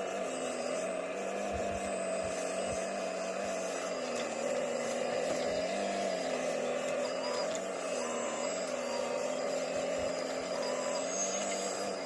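Diesel engine of a heavy earthmoving machine running steadily, its pitch wavering slightly up and down.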